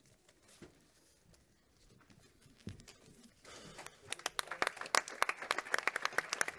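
An audience begins clapping about halfway through, quickly building into steady applause after a few seconds of quiet room noise.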